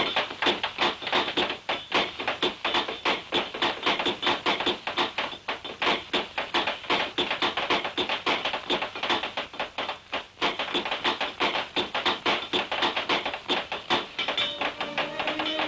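Hand forging of hobnails: a quick, dense run of hammer blows, about five a second, striking the nail heads on the anvil and nail header. Near the end, music comes in under the hammering.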